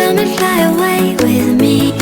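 Background music: an electronic pop track with a steady beat and a gliding vocal-like melody over a bass line.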